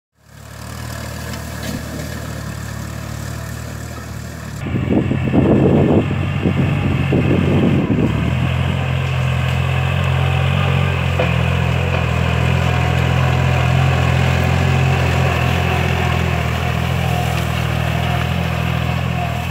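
Kubota L4018 tractor's diesel engine running steadily as it pulls a disc plough through soil. It gets louder about five seconds in, with a few seconds of rough, irregular noise over the engine.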